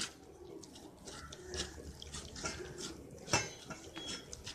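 A hand squelching and kneading a thick, wet batter of cornflour, maida, rice flour and spices in a bowl. It makes soft, irregular wet squishes and slaps, the loudest a little past three seconds in.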